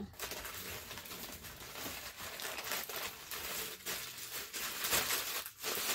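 Plastic packaging rustling as it is handled, with many small crackles.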